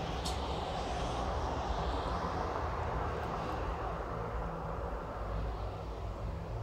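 Steady rumble of distant vehicle traffic heard through an open, screened window, with a short click just after the start.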